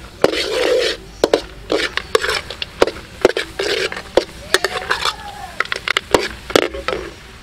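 Metal ladle stirring and scraping around a steel wok with sharp clinks where it strikes the pan, about two strokes a second, as star anise fries in a bubbling brown sauce.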